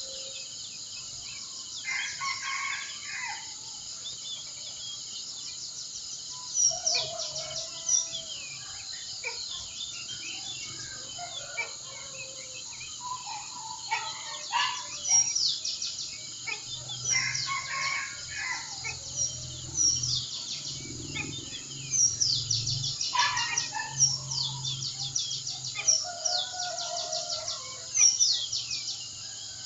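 Several birds chirping and twittering in quick falling notes, some calls louder and closer, over a steady high insect hum.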